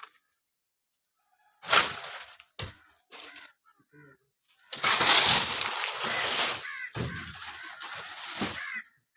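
Coconut palm wood cracking and crashing: a sudden loud crack, a few knocks, then a longer crash lasting about four seconds.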